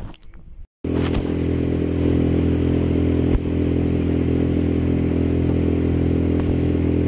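Outboard motor on an inflatable boat running steadily under way at speed, cutting in abruptly about a second in.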